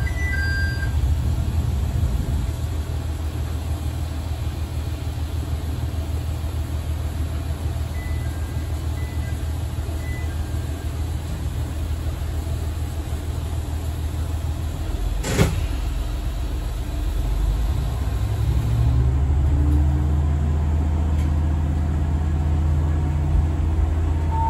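Diesel railcar engine running steadily, heard from the cab, with a single sharp click about 15 seconds in. The engine note grows stronger and fuller about 19 seconds in.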